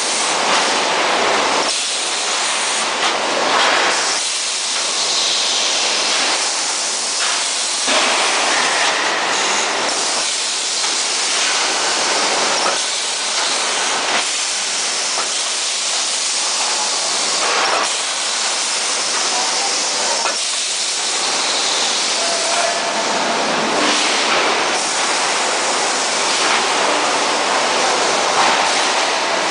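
Spot welding special-purpose machine at work on a floor panel: continuous loud hissing noise that shifts in texture every second or two.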